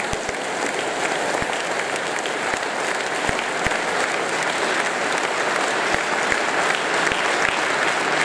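Large audience applauding steadily, growing a little louder toward the end.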